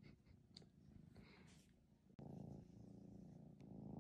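Maine Coon kitten purring: a low, steady purr that starts suddenly about two seconds in, after a couple of seconds of faint soft rustling.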